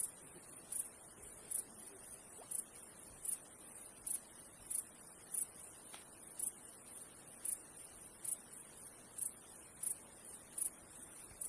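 An insect, cricket-like, chirping very high-pitched in a steady rhythm, a little over one chirp a second with fainter chirps between, over a faint steady rush of a river.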